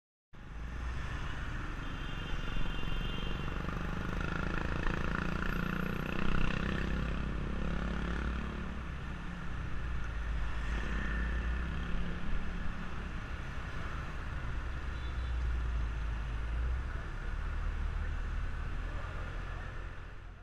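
Street traffic, mostly motorbikes and cars running past in a steady mix of engine noise.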